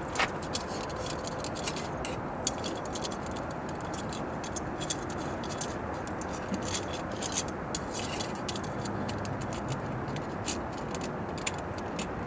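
Metal spring clamp being worked around a pool light's face ring, giving many light metallic clicks and rattles as it catches on the hooks, over a steady background hiss.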